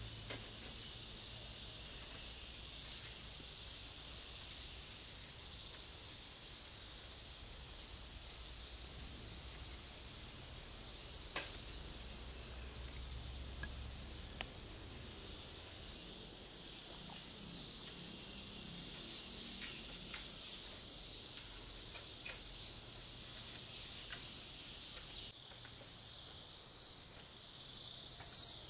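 Forest insects chirring in a high, steady chorus that swells and fades about once a second, with a few faint sharp clicks.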